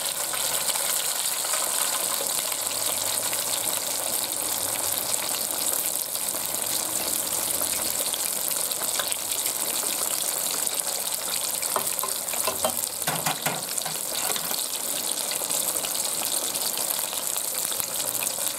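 A whole devil stinger fish deep-frying in a pot of hot oil: a steady, dense bubbling hiss of oil boiling around the large fish on its first fry. A few brief clicks come about two-thirds of the way through.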